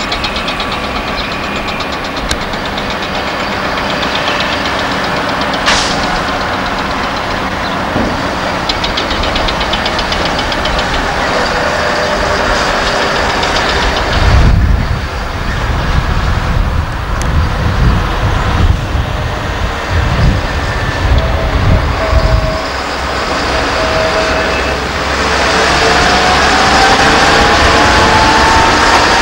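Diesel engines of Mercedes-Benz dump trucks running as the loaded tippers drive past on a dirt haul road. Heavy low rumbling comes and goes in the middle, and near the end an engine note rises steadily as a truck pulls away.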